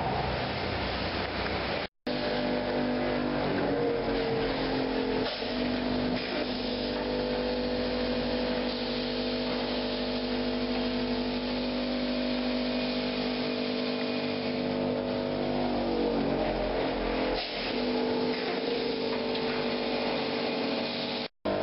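Concrete slab press machinery running with a loud, steady mechanical hum. About three seconds in its pitch rises, then it holds steady, falls again around sixteen to seventeen seconds, and rises once more near the end. The sound cuts out briefly twice.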